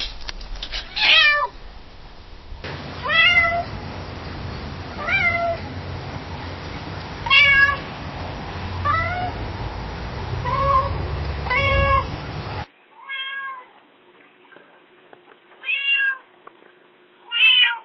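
Domestic cat meowing repeatedly, about ten short meows one to two seconds apart, each rising and then falling in pitch. A low hum sits under the middle stretch; about 13 s in it cuts to a quieter, cleaner recording of more meows.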